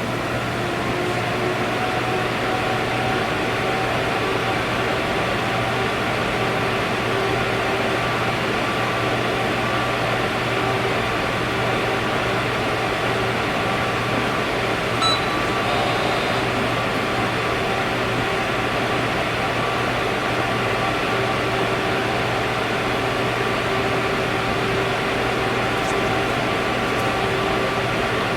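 Hydraulic pump and electric motor of an Ermak Speed-Bend CNC press brake running steadily at idle, a constant hum with a hiss. A short faint beep about halfway through.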